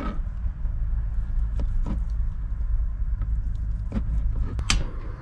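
Knife slicing cooked chicken on a plastic cutting board: a handful of sharp taps of the blade against the board, the loudest near the end, over a steady low rumble.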